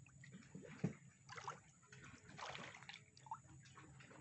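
Faint, irregular splashing and trickling of water from a dense school of young Nile tilapia crowding the surface of a river net cage.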